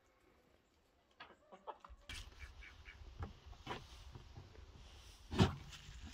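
Handling sounds of hands knocking and rubbing against pale grey pumpkins, over a low rumble, with one sharp knock about five seconds in.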